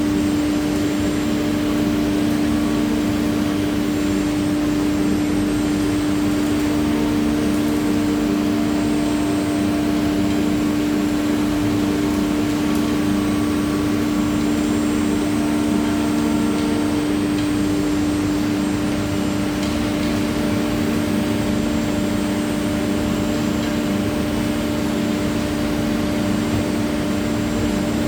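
CNC router spindle running steadily while cutting a GRC (glass-fibre reinforced concrete) panel, a constant loud hum with one strong steady tone and no change in load.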